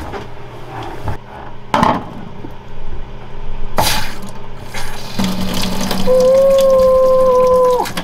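Two knocks, then a boat's freshwater pressure pump starts running with a steady whine as the galley faucet is opened and water runs into a stainless steel sink; the pump is freshly repaired and drawing water again. The whine cuts off suddenly at the end.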